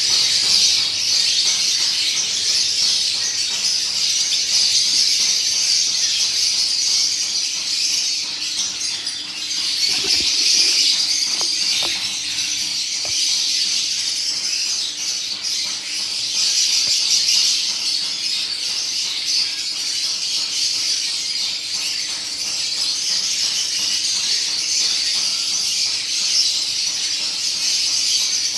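Lovebirds chirping and chattering nonstop in a high, dense, shrill chorus, with a few soft knocks about ten to thirteen seconds in.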